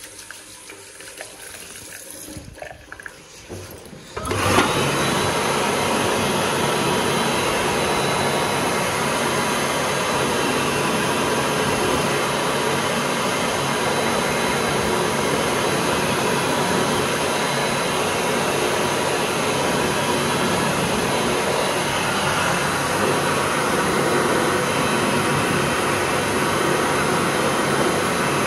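A tap runs quietly over a hand, then about four seconds in a World Dryer Model A warm-air hand dryer starts abruptly. It runs loud and steady, a rush of blown air with a faint steady whine in it.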